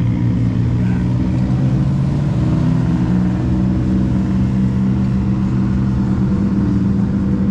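A motor vehicle's engine running steadily, its pitch stepping up a couple of seconds in and then holding.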